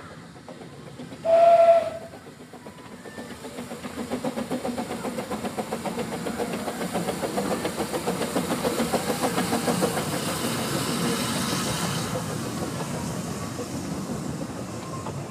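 Narrow-gauge steam locomotive gives a short whistle blast about a second in, then pulls away working steadily: rhythmic exhaust beats build up with hissing steam, then ease off as the coaches roll past.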